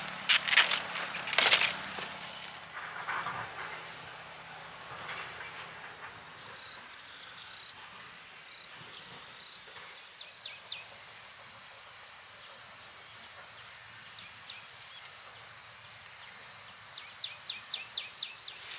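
Quiet outdoor ambience. Several loud rustles and knocks come in the first two seconds, then a steady low hiss with scattered short, high chirps, and a quick run of about eight high ticks near the end.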